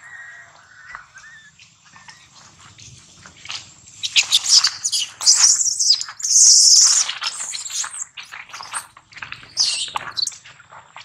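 Baby macaque screaming in distress: a run of loud, high-pitched shrieks starting about four seconds in, loudest around six to seven seconds, then breaking into shorter cries until near the end. Faint short chirps come before the screaming.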